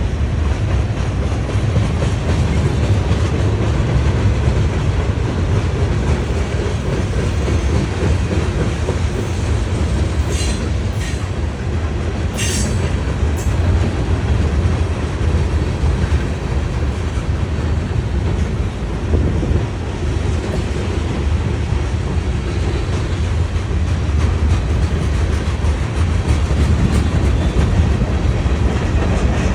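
Norfolk Southern train rolling past: a steady, loud low rumble of wheels on rail with clickety-clack. A few brief high squeals come about ten to fourteen seconds in.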